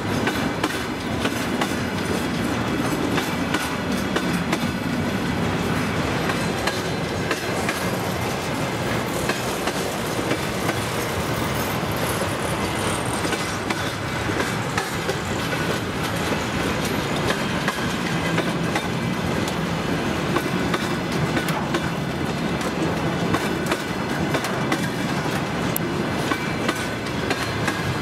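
Freight train of empty flat wagons rolling past, a steady loud clatter of wheels clicking over the rail joints.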